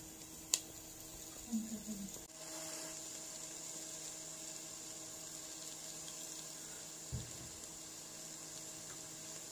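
Chopped onions frying gently in a nonstick pan: a faint, steady sizzling hiss over a low hum. A sharp click comes about half a second in, and a soft low thud about seven seconds in.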